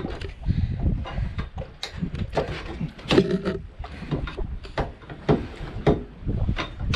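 Wind buffeting the microphone with a constant rumble, and a string of irregular knocks and clatters as a dinghy is hauled in by its line against a catamaran's stern.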